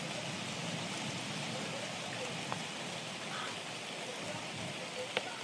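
Heavy rain during a thunderstorm: a steady hiss with a few sharp drip clicks, the loudest just before the end.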